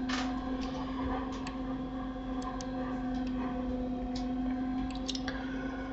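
Scattered light clicks of a computer mouse, about a dozen spread irregularly, over a steady electrical hum.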